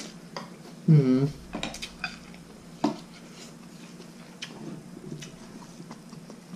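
Chopsticks clicking against a noodle bowl during eating, a few scattered light clinks, with a brief voiced sound about a second in.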